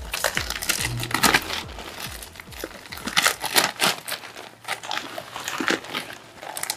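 Dry straw rustling and crackling in irregular handfuls as it is pushed and packed into a plastic bag to build a mushroom bed, with the bag crinkling along with it.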